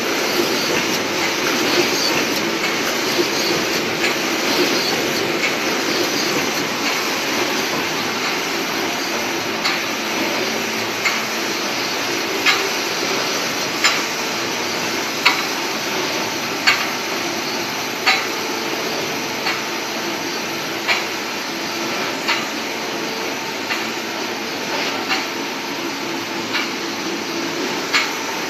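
Wire mesh panel welding machine running: a steady mechanical hum with a sharp metallic clack repeating about every one and a half seconds as the machine cycles.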